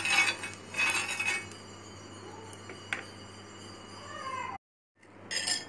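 A steel spoon scraping across a hot cast-iron tawa, spreading ghee over it in a few rough, ringing strokes in the first second and a half. After that only a faint steady hiss remains, then one more short scrape near the end.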